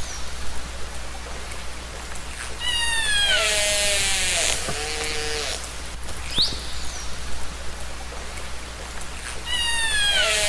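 Orca calls recorded underwater: a falling call followed by a buzzing pulsed call, lower short calls, then a brief rising whistle. The sequence repeats about every seven seconds over a steady low hum.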